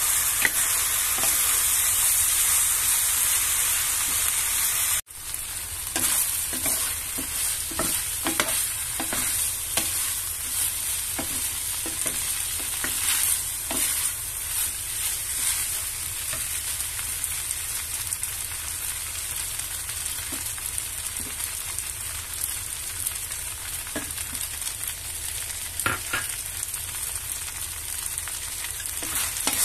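Rice noodles and vegetables sizzling in a hot frying pan as they are stir-fried, with the wooden spatula scraping and knocking against the pan. The sizzle drops suddenly about five seconds in and carries on quieter.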